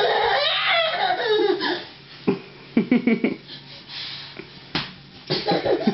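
Laughter: a high, gliding voice at first, then short bursts of laughing about three seconds in and again near the end.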